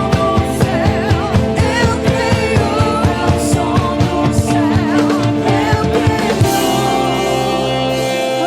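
Worship song: singing over a full band with a steady drum beat. About six and a half seconds in, the drums drop out and a held chord rings on.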